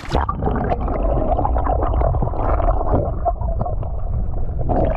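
Muffled underwater rumble and gurgling of moving water, heard through an action camera held just below the surface. The sound turns brighter near the end as the camera comes up.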